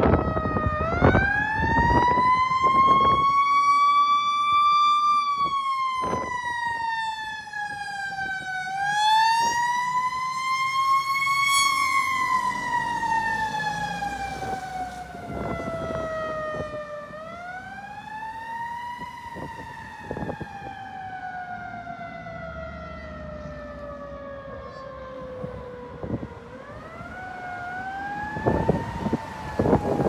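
Federal Q2B mechanical siren on a fire engine winding up and coasting down in long, slow wails. Each rise takes a couple of seconds and each fall runs longer. The siren grows fainter as the truck drives away.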